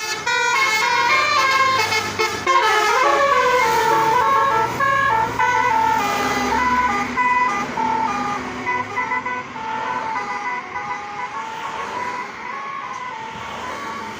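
Bus telolet horn, a multi-tone air horn playing a stepped melody of several notes at once. A sliding, siren-like wail comes in about three seconds in.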